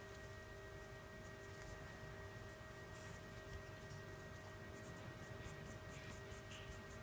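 Pencil sketching on paper: faint, quick scratching strokes in short runs, over a steady faint hum.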